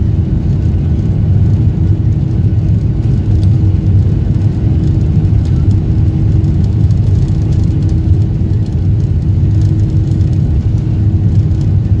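Jet airliner cabin noise heard from a window seat: the engines of a Ryanair Boeing 737-800 running with a loud, steady low rumble and a steady hum as the plane rolls along the ground.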